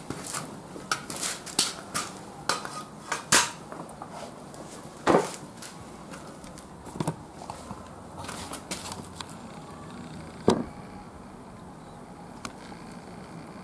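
Oga-binchotan charcoal popping and cracking as it catches in foil-wrapped metal chimney starters. The sharp clicks come several a second at first, then thin out to a few scattered pops, the loudest about five seconds in and again after ten seconds.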